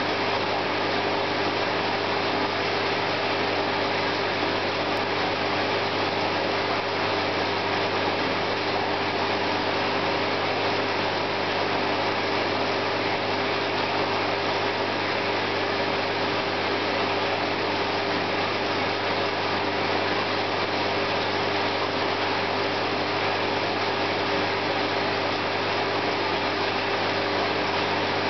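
Steady hum and hiss of running aquarium equipment, a low mains hum under an even rushing noise that does not change.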